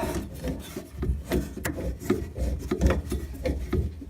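Rotary tube cutter being worked around a 15 mm copper pipe, giving rasping metal-on-metal strokes about two or three a second as the wheel scores through the pipe.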